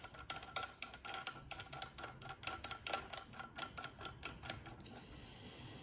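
Rapid light metallic clicking, about four or five clicks a second, as a machined steel bolt is spun by hand onto the threaded top of a milling machine spindle; the clicking stops about four and a half seconds in.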